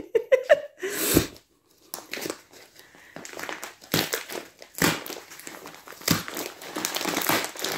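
Plastic parcel wrapping crinkling and rustling as it is cut open with scissors and pulled apart by hand, in an irregular run of crackles with a few sharper snaps.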